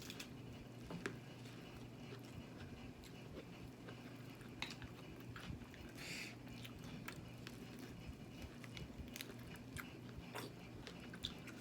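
A person eating close to the microphone: quiet chewing with soft, irregular mouth clicks and smacks.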